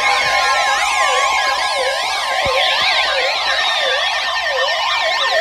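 Many sirens sounding at once, their rising-and-falling sweeps overlapping at different speeds, with a few steady tones and slowly falling tones among them.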